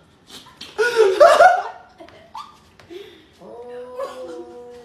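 A person laughs loudly about a second in. Near the end comes a long, steady meowing call, part of a back-and-forth of meows between a cat and its owner.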